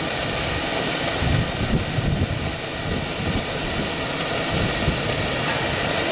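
Wood-pellet biomass boiler plant running with a steady rushing noise as its fuel feed starts up, with some low rumbling between about one and three seconds in.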